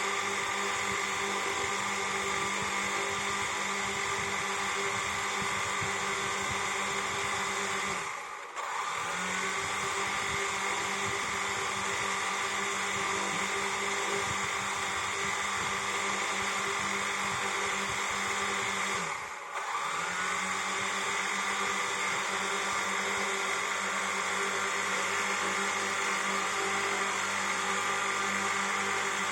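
Quadcopter drone's propellers buzzing with a steady multi-toned whine. Twice, about 8 and 19 seconds in, the motors briefly drop in speed and then spin back up, their pitch sliding up again.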